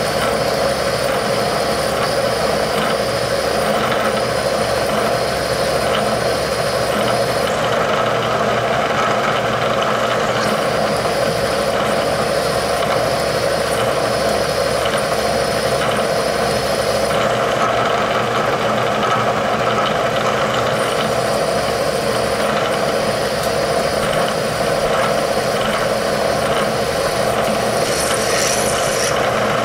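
Bridgeport milling machine running under load as a twist drill cuts into a steel axle bearing hub: a steady machine hum with a thin high tone that drops out twice for a few seconds.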